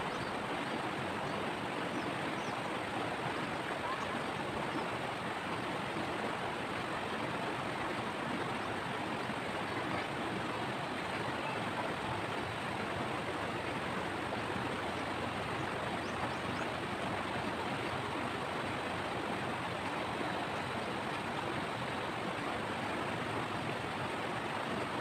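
River water rushing steadily over rocks and boulders, an even, unbroken splashing noise.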